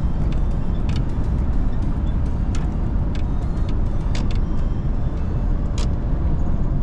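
Car-transporter truck driving, heard from inside the cab: a steady low drone of diesel engine and tyre noise, with a few light clicks and rattles.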